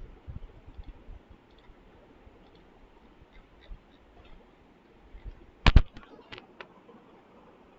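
Computer mouse clicking: scattered faint clicks, then a quick run of several louder clicks a little past halfway, with two or three single clicks just after.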